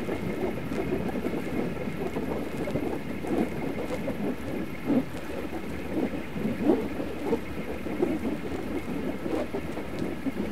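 Whooshing elastic cords of a light-and-sound installation: a continuous rough, fluttering whoosh full of quick irregular flickers, with a faint steady high whine above it.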